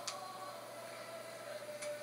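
Mixed choir softly holding a sustained chord, its upper notes dropping away about half a second in and leaving one held note. Two faint clicks, one just after the start and one near the end.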